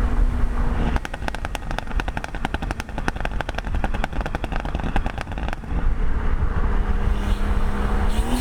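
Exhaust of a modified BMW M140i's B58 3.0-litre turbocharged inline-six, tuned for pops and burbles, crackling and popping in a rapid run of sharp cracks for about four seconds on the overrun. The engine then pulls again, its pitch rising near the end.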